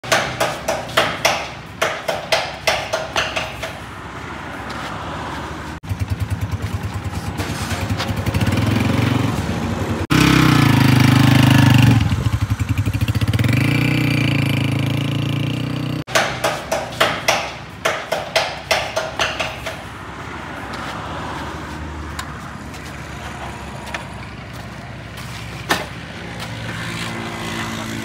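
Honda CG125's single-cylinder four-stroke engine running. Its note goes through quick repeated throttle blips, a rising pull as the bike is ridden, a loud steady stretch, and a steady idle near the end, with several abrupt cuts between segments.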